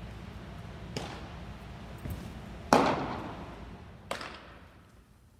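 A pitched baseball smacking into a catcher's mitt about two and a half seconds in: one sharp pop that rings on through the gymnasium. Lighter knocks of other catches and throws come before and after it.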